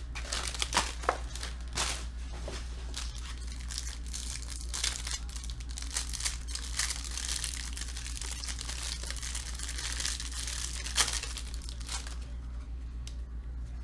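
Clear plastic wrapper of a football trading card pack crinkling and tearing as it is opened by hand, with small clicks and rustles from the cards being handled, over a steady low hum. The crinkling thins out about twelve seconds in.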